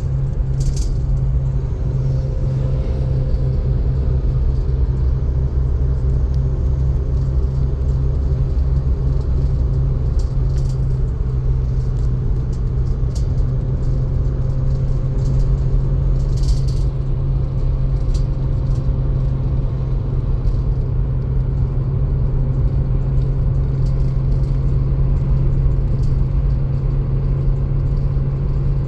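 1987 Holden VL Commodore with a Nissan RB30E straight-six driving at a steady pace: a constant low engine drone with road noise, and a few light clicks or rattles.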